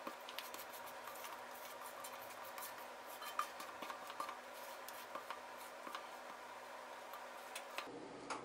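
Silicone spatula scraping thick cornbread batter out of a stainless steel mixing bowl into a cast iron skillet: faint soft scrapes and light clicks, with one sharper tick about three and a half seconds in.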